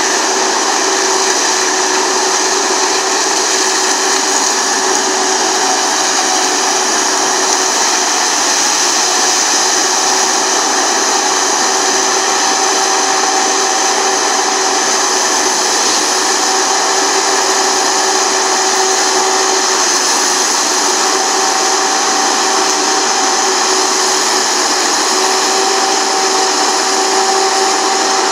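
Galotrax 300 tracked forestry mulcher running steadily as it grinds brush and branches, its engine and spinning mulcher rotor making a continuous whine with a hissing edge.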